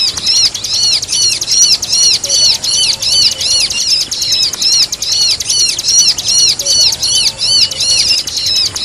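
Bar-winged prinia (ciblek) calling: a continuous run of high, arched chirps, each rising and falling, about three a second.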